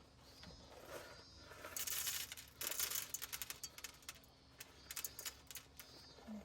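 Small hard objects clinking and rattling as they are handled. A dense clattering rattle comes about two seconds in, followed near the end by a string of separate sharp clicks.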